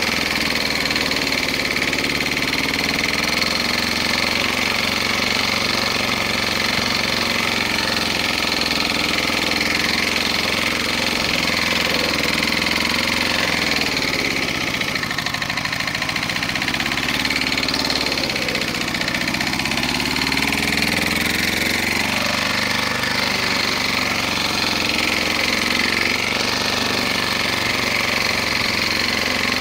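Briggs & Stratton single-cylinder four-stroke engine of a 40-year-old Hayterette rotary lawnmower running steadily. About halfway through, its speed drops and picks up again twice.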